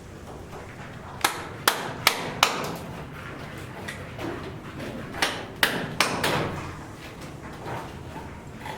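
Hammer strikes: four quick, sharp blows about a second in, a pause, then three more a little past five seconds in.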